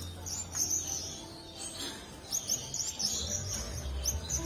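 Birds chirping in quick runs of short high notes over soft background music with held tones and a low bass line.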